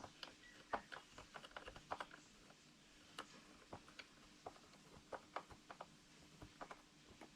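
Faint, irregular clicks and light taps of a flathead screwdriver working at a plastic speaker casing to pry it apart, over a faint steady hum.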